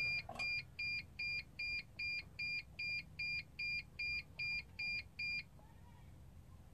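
The 2006 Dodge Sprinter's instrument-cluster chime beeping fourteen or so times, evenly at about two and a half beeps a second, as the ignition is switched on while the button is held during the service-indicator reset. The beeping stops about five and a half seconds in.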